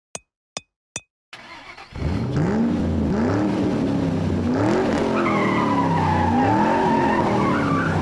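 Three sharp clicks, then a car engine revving up and down in waves about once a second, with tires squealing from about five seconds in.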